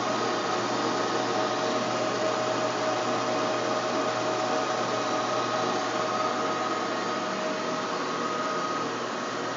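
TOS Trenčín SN40 lathe running, a steady mechanical whir from its motor and headstock gearing with a couple of steady whining tones over it.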